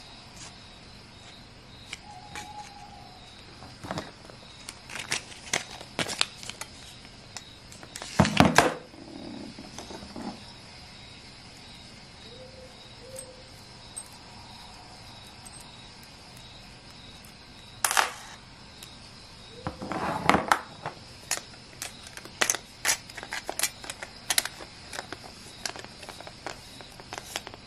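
Clicks, taps and scrapes of antique binocular parts being handled and turned in the fingers: brass eyepiece rings and the body knocking and rubbing. There are louder knocks about eight seconds in and again around eighteen and twenty seconds in.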